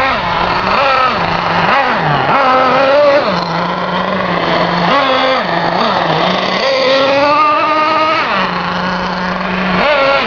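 Simson S50 moped's 50 cc single-cylinder two-stroke engine revving, its pitch rising and falling repeatedly as the throttle is opened and eased off.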